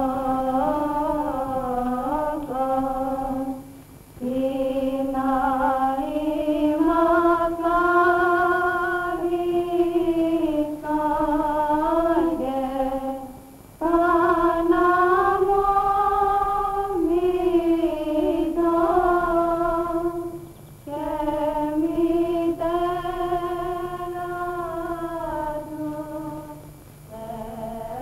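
A woman's voice singing an unaccompanied, ornamented Orthodox Byzantine chant in slow, long phrases, with short breaths about every six to nine seconds.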